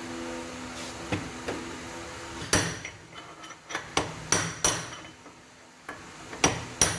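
Hammer blows on steel, driving the bearing outer race (cup) out of a Fiat Palio Weekend's rear axle hub bore. The race has been scored by a seized, disintegrated wheel bearing. After a couple of seconds of steady hum come sharp, ringing metal strikes, irregularly spaced, growing more frequent near the end.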